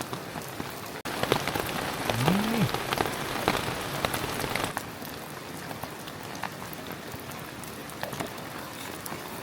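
Steady rain pattering on a tarp, with many distinct drop strikes; for a few seconds after about a second in it is louder and the drops hit harder. A brief low tone rises and falls about two seconds in.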